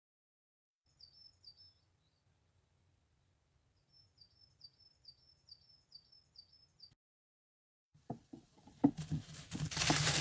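A small bird calling: a brief phrase, then a steady run of high, downslurred chirps about three a second. About nine seconds in, loud rustling with sharp knocks takes over close to the microphone.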